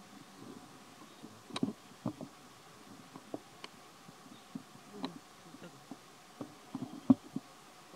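A young macaque biting and chewing a piece of fruit: irregular soft munching with small clicks and smacks, the sharpest click a little after seven seconds.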